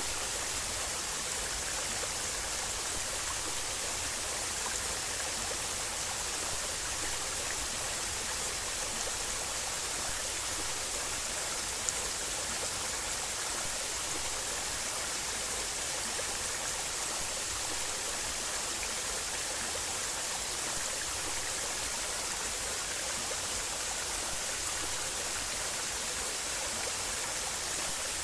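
Waterfall: water pouring and splashing in a steady, unbroken hiss. A single brief click sounds about twelve seconds in.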